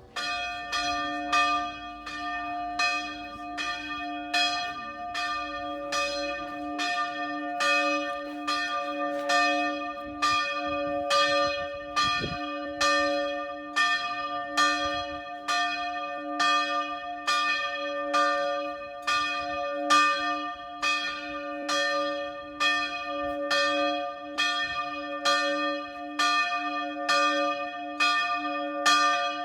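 Church bell ringing in even, repeated strokes, a little more than one a second. The ringing starts suddenly and each tone rings on under the next stroke.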